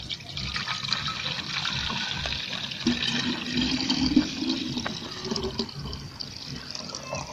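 Liquid poured in a steady stream from a plastic jug into the narrow neck of a plastic sprayer bottle, splashing as the bottle fills.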